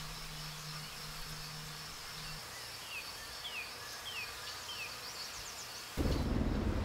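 Steady high-pitched insect buzzing in open country, with four short falling bird chirps in the middle. About six seconds in it cuts to a louder low rumble.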